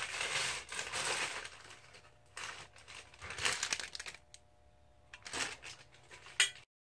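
Plastic wrapping crinkling and rustling as a part is pulled out of its bag, in several spells, with one sharp click near the end.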